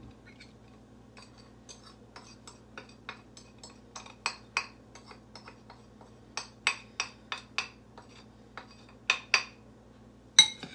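A metal spoon tapping and scraping against a ceramic dish as a dry spice mix is knocked out over chopped apples: a string of irregular clinks, the sharpest near the end.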